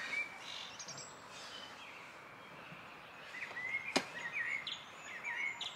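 Small birds chirping in short, twisting phrases over a faint steady hiss, with a single sharp click about four seconds in.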